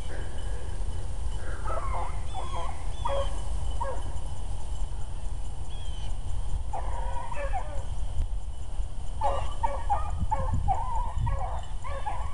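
A pack of rabbit hounds baying as they run a rabbit's track: scattered cries for the first few seconds, then a steady chorus of many overlapping voices from about nine seconds in.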